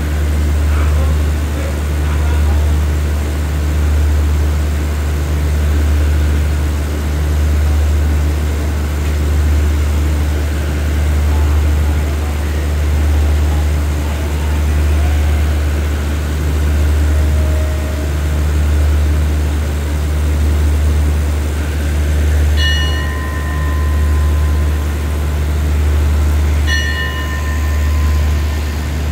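Steady low hum of a diesel express train standing at a station platform, its engine running and swelling about every two seconds. Near the end, two short high ringing tones sound about four seconds apart.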